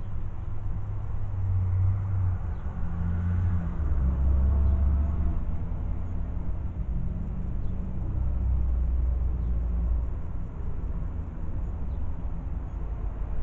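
Car cabin noise while driving: a steady low engine and road rumble whose pitch shifts a little as the car moves along.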